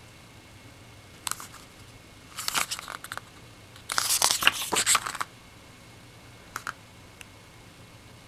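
Glossy paper pages of a hardbound digibook being turned by hand: crisp paper rustles, one short and then a louder one lasting about a second midway, with a few light clicks before and after.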